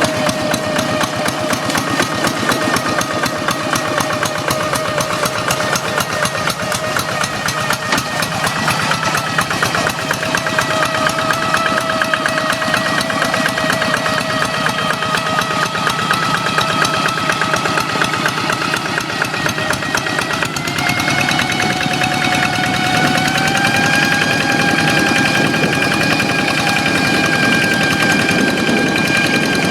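Hand tractor's single-cylinder Kubota diesel engine running steadily under a high, whining tone ("ngiung ngiung"). The whine steps up in pitch about two-thirds of the way through and again a few seconds later as the engine speeds up.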